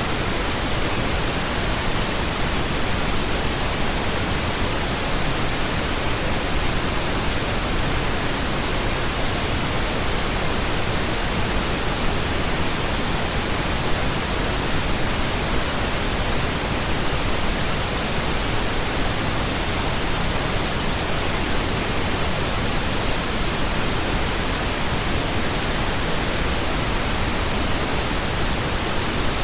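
Steady, unchanging pink noise: a constant even hiss spread across all pitches, with no rises, breaks or events.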